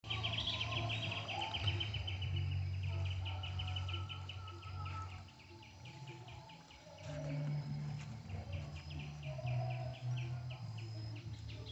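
Insects chirping in a rapid, even pulsed trill, about ten pulses a second, over a low steady hum, with an occasional faint bird call.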